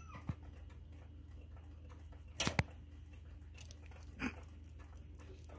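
Veiled chameleon snatching a hornworm and biting into it: a short cluster of sharp smacks and clicks about two and a half seconds in, then a single quieter snap a little past four seconds, over a low steady hum.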